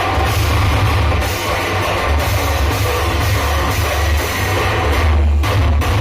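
Loud music played through a large street DJ sound system, dominated by heavy bass, with a brief dip in the treble about five seconds in.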